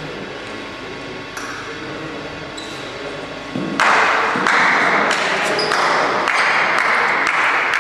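Table tennis ball ticking on bats and table: a few scattered ticks, then sharp ticks about every half second. A loud hiss starts suddenly about four seconds in and is the loudest sound from then on.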